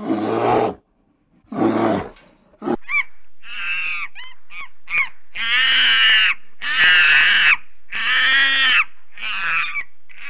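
Two loud animal roars, then a run of repeated harsh, rasping calls about a second long each, like caws.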